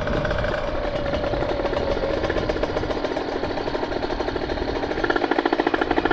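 Kawasaki Ninja 150 RR's ported single-cylinder two-stroke engine running on the road at steady revs, getting louder and harsher about five seconds in. The freshly rebuilt engine is being run in.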